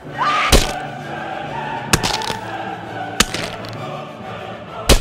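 Dramatic film score with sustained choir-like voices, cut through by four loud hits, about half a second, two seconds, three seconds and five seconds in.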